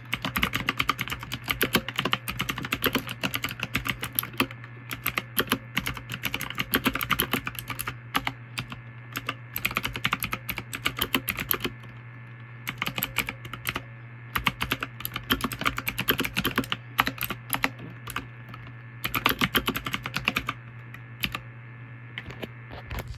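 Typing on a computer keyboard in quick runs of keystrokes with short pauses between them, over a steady low hum.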